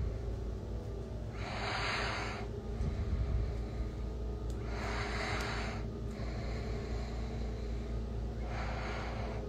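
A person breathing close to a phone microphone: three noisy breaths about three seconds apart, over a steady low hum.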